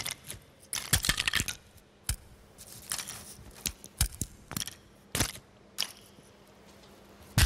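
Crisp biscuits crunching: a dozen or so sharp, brittle crunches at uneven intervals, fewer toward the end.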